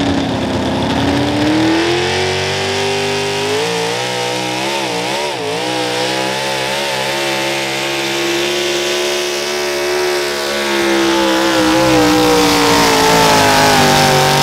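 Super stock 4x4 pulling truck's engine running at full power as it drags the weight sled. The pitch climbs as the truck launches, wavers briefly about four to six seconds in, holds steady, then rises again near the end.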